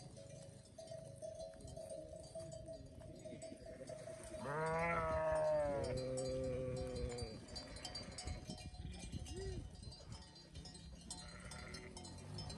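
A grazing flock of sheep and goats bleating. One loud bleat comes about four and a half seconds in, falling in pitch and running into a steadier held call of about a second and a half, with a few fainter bleats later.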